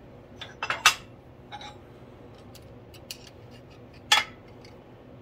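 Metal clinks and clacks from working a shop press and handling its steel die tooling: a quick cluster of sharp clinks about a second in, a few light ticks, then one loud clack about four seconds in as the die block is lifted off the pressed stainless bracket.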